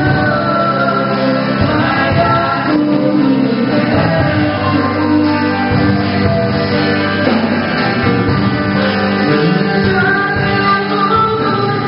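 Christian worship music: voices singing a song with a band of instruments, steady and full throughout.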